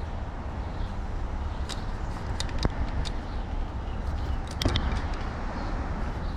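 A few short, sharp clicks and knocks of parts and tools being handled, the loudest a cluster near the end, over a steady low rumble.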